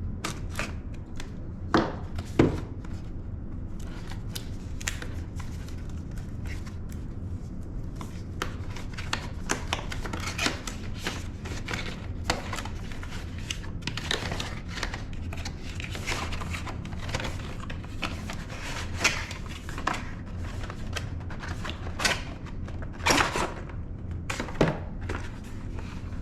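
Packaging of a yard sign being opened and handled: rustling, scraping and many scattered clicks, with a few sharper knocks about two seconds in and near the end, over a steady low hum.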